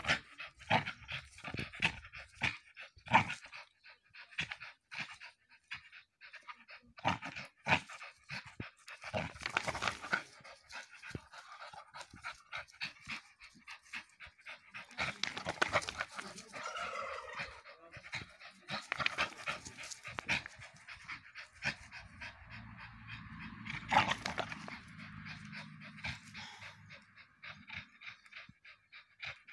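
Dog panting hard through clenched jaws as it hangs and tugs on a spring-pole rope toy, with many short clicks scattered through.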